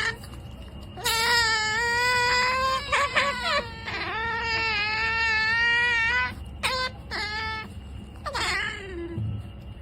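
Otter whining calls: two long, high, crying calls of about two seconds each, followed by several shorter ones.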